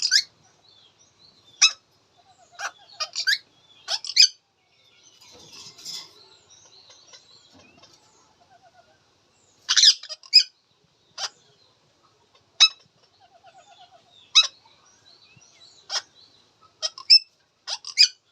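Indian ringneck parakeet giving short, sharp, high chirping calls, singly and in quick pairs, at irregular intervals, with a pause of a few seconds in the middle.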